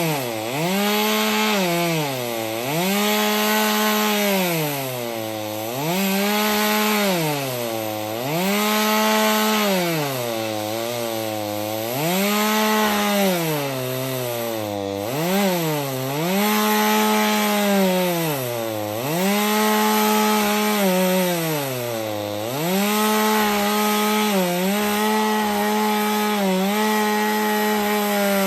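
Chainsaw mounted in a chainsaw mill ripping lengthwise through a log, running under load. Its engine note repeatedly sags and climbs back about every two seconds as the cut loads it, with shallower, quicker dips near the end.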